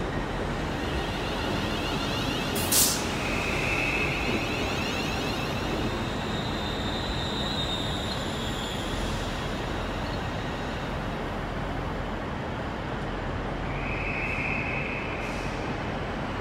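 Class 350 Desiro electric multiple unit coasting slowly past as it arrives at the platform, with a steady running rumble. There is a sharp click about three seconds in, and brief high-pitched whines just after it and again near the end.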